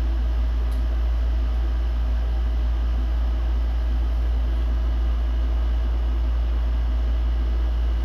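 A steady low hum, constant in level throughout, with a faint hiss above it.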